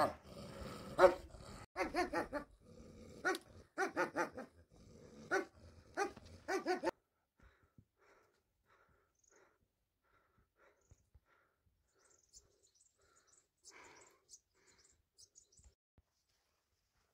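A dog barking over and over, about a dozen sharp barks in the first seven seconds, then the sound cuts off abruptly. Only faint scattered ticks and chirps follow.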